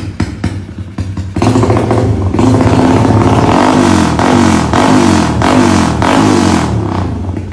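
Tuned Yamaha LC135 single-cylinder four-stroke motorcycle engine idling with a quick, even beat, then revved hard from about a second and a half in. It is held high with several quick rising blips of the throttle and drops back toward idle near the end.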